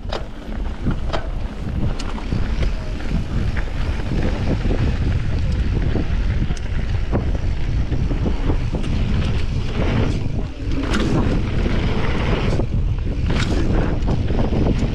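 Wind rushing over the microphone and tyres rolling on a loose dirt trail as a mountain bike descends at speed, with scattered sharp knocks and rattles from the bike hitting bumps.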